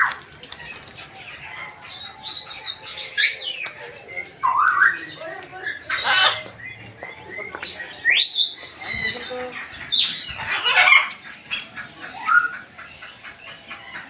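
Parrots squawking: a string of harsh screeches and calls that sweep up and down in pitch, coming every second or two.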